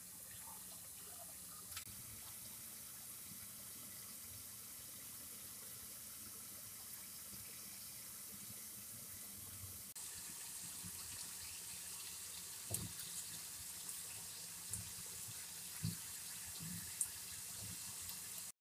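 Flour-coated macaroni deep-frying in hot cooking oil: a steady, soft sizzle, with a few light knocks in the second half.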